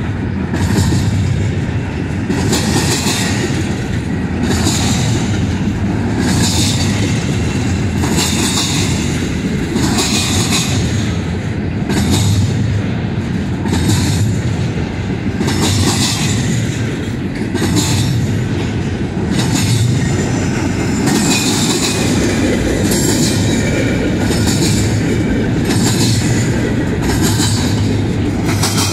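Double-stack intermodal freight train rolling past at close range: a steady low rumble of wheels on rail, with a sharp squeal and clack each time a set of trucks passes, about every two seconds. The passes come a little faster near the end as the train picks up speed.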